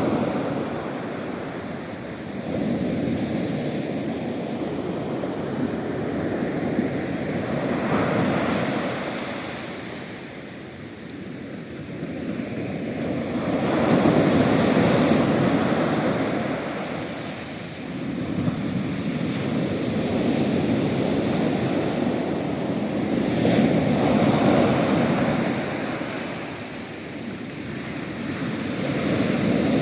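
Sea waves breaking on the shore in a westerly swell, the surf swelling and easing back every few seconds in a continuous wash.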